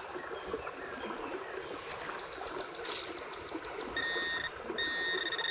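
Gloved hand scraping through loose dirt and gravel, then a Garrett pinpointer probe beeping twice near the end, a short steady tone and then a longer one, signalling metal in the hole.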